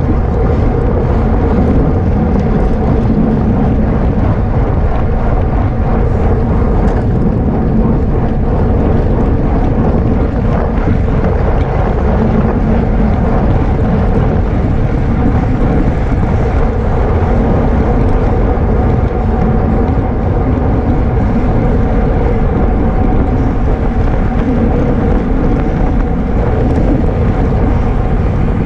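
Wind rushing over the microphone of a camera riding with a racing bicycle at speed, a steady rumble with a constant hum underneath.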